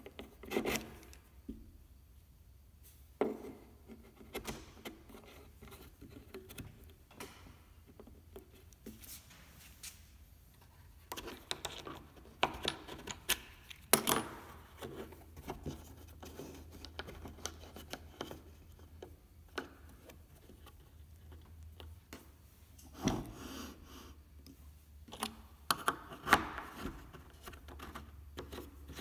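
Handling noise from a 3D-printed bench dog with a plastic star knob and a plywood strip on a perforated workbench top: scattered knocks, clicks and rubbing as the parts are set in place and the knob is turned, with several bursts of close clattering. A faint steady low hum runs underneath.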